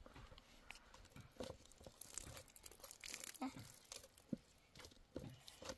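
Near silence with faint, scattered rustles and small clicks.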